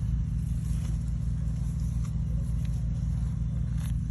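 Irrigation water-pump engine running steadily at constant speed: an even, low mechanical drone with a light click near the end.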